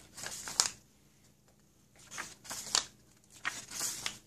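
Pages of a paper manual being flipped by hand, rustling in three short bursts with quiet gaps between.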